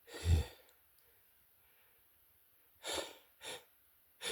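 A man's short breathy bursts while he holds back sneezes: one just at the start, then three quick sharp breaths in the last second and a half.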